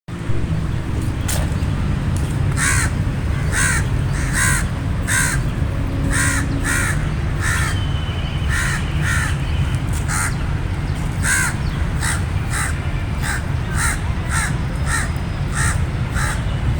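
A corvid cawing: a long run of short, repeated caws starting about three seconds in, often in pairs, about one to two a second, over a steady low rumble.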